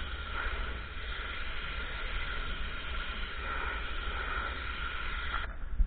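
Ryobi RY14122 electric pressure washer spraying a car with a steady hiss over a low rumble; the spray stops suddenly near the end.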